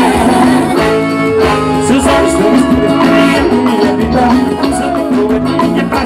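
Live forró band playing, with accordion and a male singer over a steady beat.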